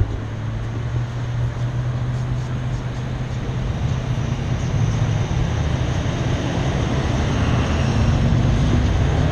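Vehicle engine idling with a steady low hum, growing a little louder over the last few seconds.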